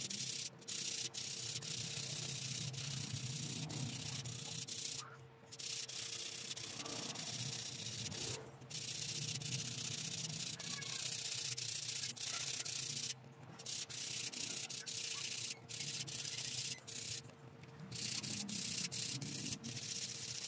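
Fine sandpaper rubbed by hand back and forth across the black stone inlay set in a stainless steel ring, smoothing the stone. The steady rasping hiss stops briefly several times, about five, eight, thirteen and seventeen seconds in.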